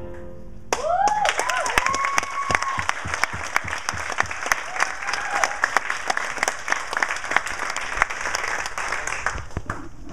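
Audience applauding after a musical number, with a few cheering whoops near the start. The clapping begins just under a second in and dies away near the end.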